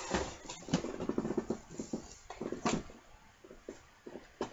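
Irregular rustling and clicking of cardboard and plastic as a board game box is opened and its pieces are handled, busier in the first three seconds and sparser after.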